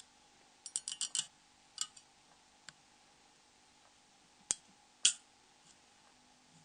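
Small, sharp clicks and taps of plastic phone parts being worked with a small tool: a quick run of four or five clicks about a second in, then a few single clicks, the loudest two near the end.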